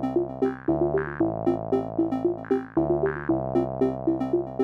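Electronic background music: a synthesizer plays a quick, repeating run of short notes over held bass notes.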